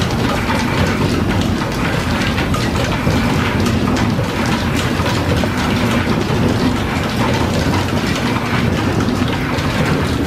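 Belt-driven milling machine taking an angled cut in metal with an end mill: a steady, dense chattering of the cutter over the running of the line shaft and flat belts that drive it.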